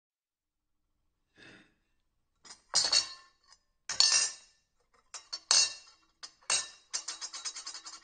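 Metal cutlery clinking and clattering against a plate: a faint scrape, then four louder clatters about a second apart, each with a bright ring. Near the end it turns into a fast run of light, even taps.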